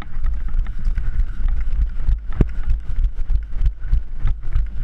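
Hurried footsteps and the rattle of gear on a moving player, heard through a body-worn microphone that rumbles and knocks as it is jostled, with one sharper knock about two and a half seconds in.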